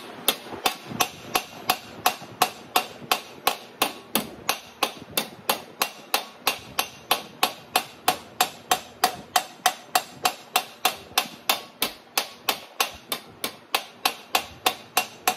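Steady rhythm of hammer blows on a sheet-steel flange, about three strikes a second, each with a short metallic ring. The reverse curve hammer is stretching the panel's outer flange, and the ringing strike sound is the sign that the metal is stretching.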